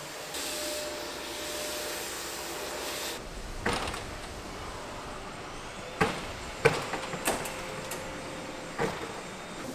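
Folding glass shop-front door panels being pushed open, clacking and knocking sharply several times in the second half as the panels fold against each other, over a steady background hiss.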